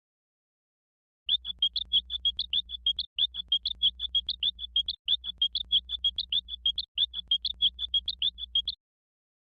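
Cartoon sound effect of rapid, high-pitched chirping, about seven chirps a second, in four runs of nearly two seconds each with short breaks, over a faint low hum. It starts about a second in.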